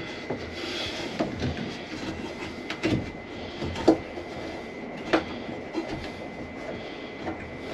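Plastic conduit bushing being worked onto a connector in an electrical panel knockout: irregular clicks and rubbing of plastic on metal, with a few sharper clicks spaced about a second apart.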